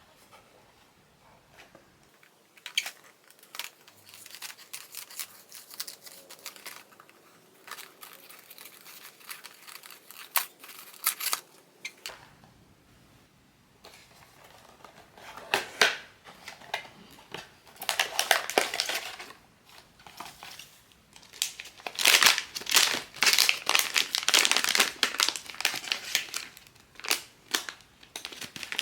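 Blind-box packaging being opened by hand: light handling clicks at first, then the packaging wrapper crinkling and tearing in irregular bursts that grow louder in the second half.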